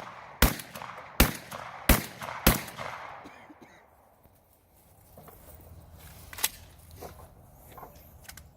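Shotgun fired four times in quick succession, about two-thirds of a second apart, each shot trailing an echo that rolls away. Quieter knocks and clicks follow, one sharper about six and a half seconds in.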